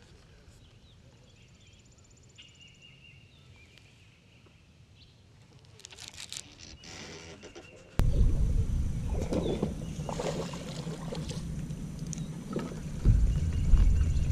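Fishing reel and tackle handled quietly, with faint ticks. About eight seconds in, wind rumble on the boat-mounted microphone sets in loudly, along with splashing and a knock near the end as a bass is reeled to the boat and lifted aboard.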